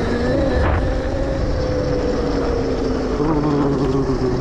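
72-volt electric pit bike's motor whining at a steady pitch that drifts slowly lower, over heavy wind rumble on the microphone while riding.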